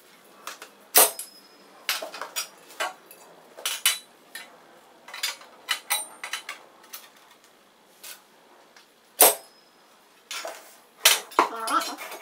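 Metal rail sections of a garage door opener clanking and clicking as they are handled, slid together and locked in place, with two sharp, louder metal knocks about a second in and about nine seconds in.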